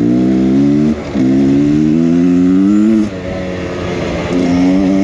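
Beta X Trainer 300 two-stroke dirt bike engine pulling hard, its note climbing, breaking briefly about a second in and again near three seconds, then picking up at a lower pitch and climbing again.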